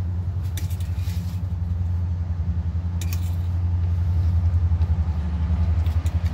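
A few short clinks of metal forks against a stainless steel plate over a steady low rumble.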